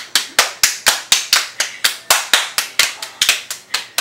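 Two people playing a fast hand-clapping game: sharp, even hand claps and palm-to-palm slaps, about four a second, kept up without a break.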